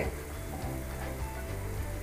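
Chopped garlic and red chilies sizzling gently in hot oil in a frying pan, a faint steady hiss under background music with a steady beat.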